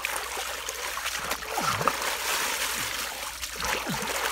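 Bare hands digging and scooping through wet mud, with squelching, splattering sounds of the mud being worked.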